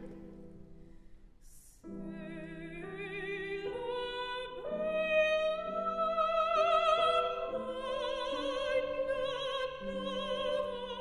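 Mezzo-soprano singing an operatic phrase with wide vibrato and long held notes over piano chords, coming in about two seconds in. She comes out of the phrase out of breath.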